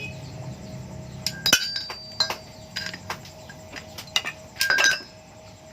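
Metal motorcycle muffler parts clinking and knocking against each other about eight times, each strike ringing briefly, with the loudest strikes about one and a half seconds in and near the end.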